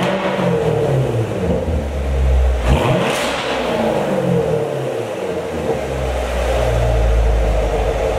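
2019 Corvette Grand Sport's 6.2-litre LT1 V8, warmed up, revved through its NPP dual-mode exhaust with the valves open. The revs drop from a blip just as the sound begins, a second short rev comes about three seconds in and falls away, and the engine settles to a steady idle near six seconds.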